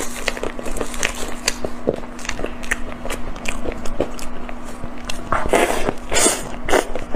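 Close-up crinkling and crackling as gloved fingers peel a wrapper off a soft round green food, in many small crackles. A few bites and chewing follow near the end.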